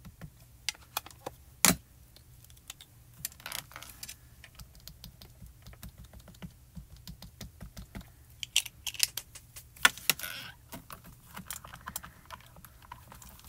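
Scattered light plastic clicks and taps from stamping tools being handled: a small ink cube inking a stamp and the hinged lid of a MISTI stamp-positioning platform being closed and pressed down. There is a sharper click a little under two seconds in and a burst of taps about two-thirds of the way through.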